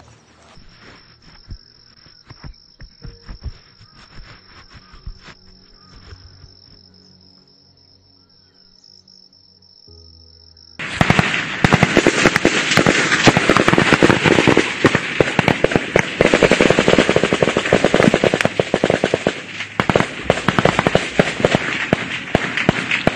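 Small-arms fire: scattered single cracks over a steady high whine, then about 11 seconds in, heavy close automatic gunfire breaks out suddenly, with rapid cracks from several weapons running on without a pause.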